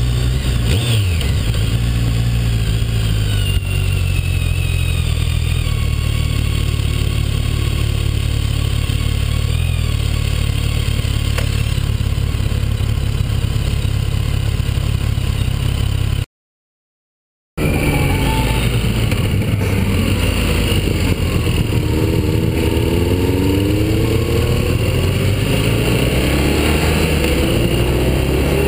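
BMW motorcycle engine heard from a camera mounted on the bike, running steadily with a low rumble. About halfway through it cuts to silence for a little over a second. Then the engine is heard under way, its pitch rising steadily as the bike accelerates.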